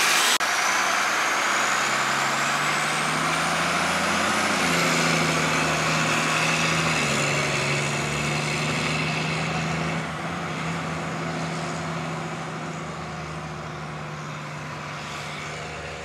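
Garbage truck engine running steadily, with a faint rising whine in the first few seconds; the sound grows gradually fainter over the last several seconds.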